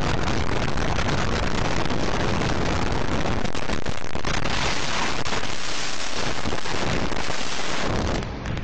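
Car road and wind noise picked up by a dashboard camera's microphone: a loud, even rushing rumble with no distinct impacts, dipping briefly near the end.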